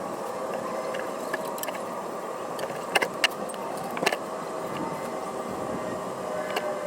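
A few sharp metallic clicks and clinks, like hand tools at the oil drain plug, over a steady even hiss.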